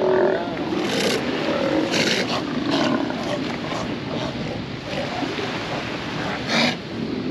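A colony of South American sea lions calling: many overlapping deep growls and barks from bulls, with a loud one near the end. This is breeding-season territorial calling as the males fight for space.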